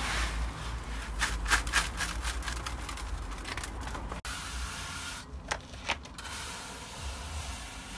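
Resin-coated gravel scraping and clattering as it is poured out of the mixing container and worked across the path, in a run of short gritty scrapes and clicks.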